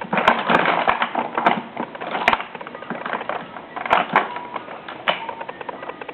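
Baby toys rattling and clicking as an infant bats at them, an uneven run of clicks and clacks with a few sharper knocks.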